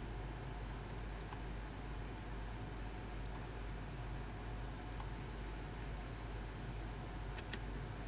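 Four sharp double clicks of a computer mouse button, each a quick press and release, spread a second or two apart over a steady low hum and hiss.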